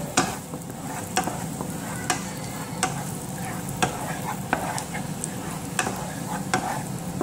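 Minced garlic sizzling in melted butter in a non-stick frying pan, stirred with a wooden spatula that knocks and scrapes against the pan about once a second.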